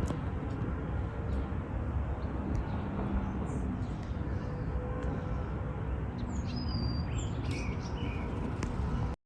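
A few faint bird chirps and a short falling whistle in the second half, over a steady low outdoor rumble; the sound cuts off suddenly near the end.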